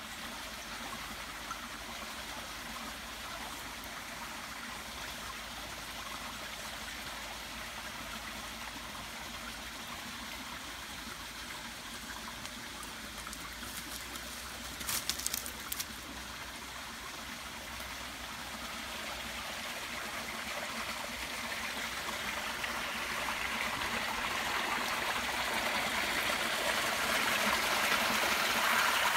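A small rocky stream trickling and splashing over stones, a steady rushing that grows louder toward the end. There is a brief scuffling noise about halfway through.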